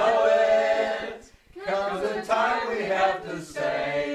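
A mixed group of men's and women's voices singing together without accompaniment, with a short break about a second and a half in before they carry on.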